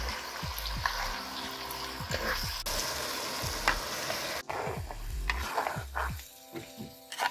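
Pineapple chutney sizzling in a clay cooking pot while it is stirred with a wooden ladle, with short scrapes and knocks of the ladle against the pot. The sizzling drops away about six seconds in and music comes in.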